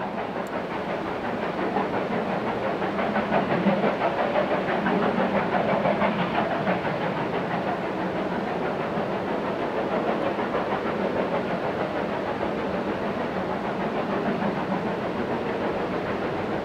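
Steam locomotive working under steam, a fast, steady run of exhaust beats over a constant rushing hiss.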